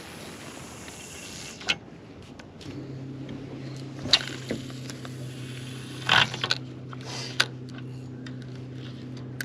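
Electric trolling motor humming steadily at a low, even pitch, starting about a third of the way in. A few sharp clicks and knocks sound over it.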